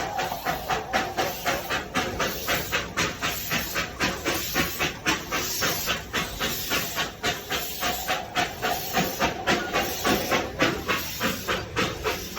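Darjeeling Himalayan Railway steam locomotive working, its exhaust chuffing in a steady rhythm of about four beats a second over a continuous steam hiss.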